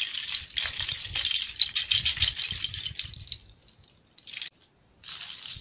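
Handmade chocalho rattle of hanging animal bones, some from a fox, tied under a fox skull, shaken so the bones clatter against each other. A dense clatter for about three seconds, then two short shakes near the end.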